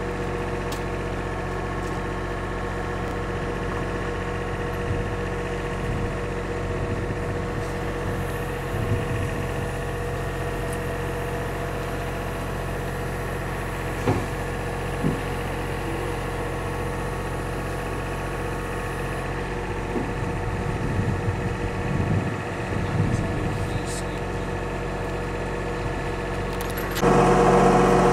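Diesel engine idling steadily, with a couple of sharp knocks about halfway through; near the end it suddenly becomes louder.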